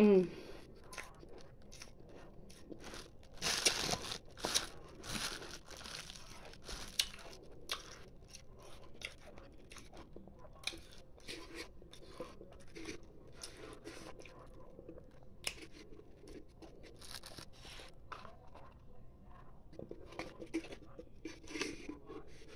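Close-up crunching and chewing of frozen chunks, ice being eaten: irregular crisp crunches all through, with a louder run of bites a few seconds in.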